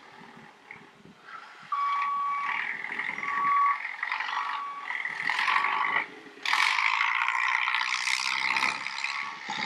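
Backhoe loader running on a construction site, with a reversing alarm sounding four one-pitch beeps of uneven length in the first half over rough machine noise.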